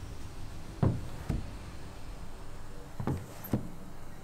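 Four dull knocks in two pairs, each pair about half a second apart, over a faint steady hiss.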